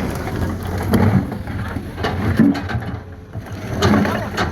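Komatsu PC210 hydraulic excavator at work, its diesel engine running with a low rumble and scattered knocks and rattles.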